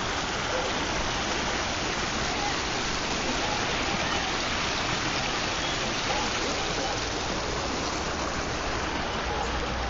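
Steady, unbroken rush of water, as of floodwater flowing or heavy rain.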